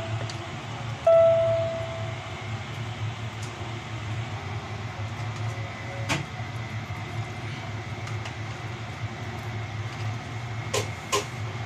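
A steady low hum, with a few sharp clicks and taps about halfway through and twice near the end as a plastic food container is handled.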